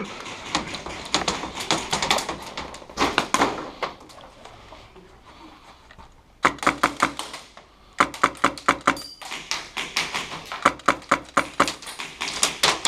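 Airsoft guns firing in rapid runs of sharp clicking shots, several separate strings, with a lull of a couple of seconds in the middle.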